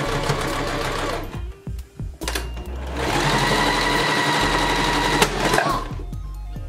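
Electric domestic sewing machine stitching in two runs: the first stops about a second in, and the second starts about three seconds in and runs for nearly three seconds.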